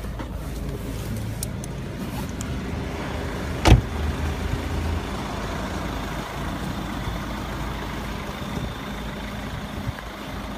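Ford Focus 1.6 TDCi four-cylinder turbodiesel idling steadily. About four seconds in, a car door shuts with a single sharp thump.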